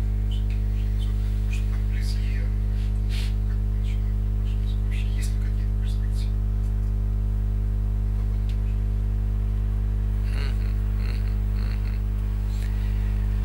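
Loud, steady electrical mains hum with a buzz of overtones above it, carried in the recording, with faint scattered crackles.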